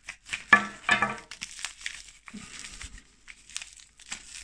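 Packaging being torn open and crinkled by hand to get at a coin, in irregular crackling bursts, loudest about half a second to a second in.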